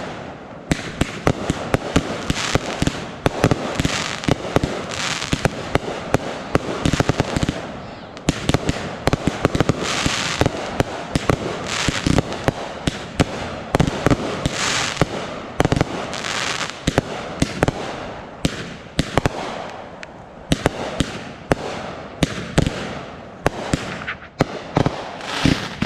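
Fireworks display: a rapid, continuous run of bangs and pops with crackling, hissing stretches between them. It thins out briefly about two-thirds of the way through, then builds again.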